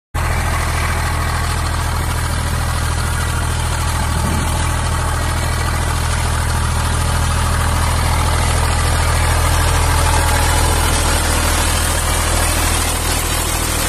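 Zetor 5011 tractor's three-cylinder diesel engine running steadily under load as it pulls a two-furrow plough through meadow sod.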